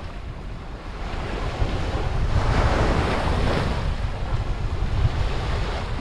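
Small sea waves washing up a sandy shore, one wash swelling and hissing about two seconds in before easing off, with wind buffeting the microphone as a low rumble.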